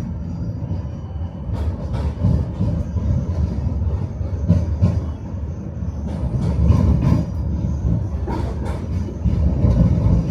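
Tram running along its rails, heard from inside the car: a steady low rumble with the irregular clatter and knocks of the wheels on the track.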